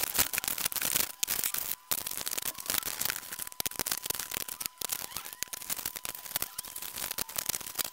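Plastic packaging rustling and rapid clicks and clatter as small metal castings, brass pieces and steel bars are set down on a metal workbench.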